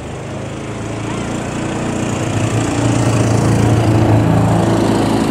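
An engine running at a steady pitch, growing louder to a peak about four seconds in and then easing off.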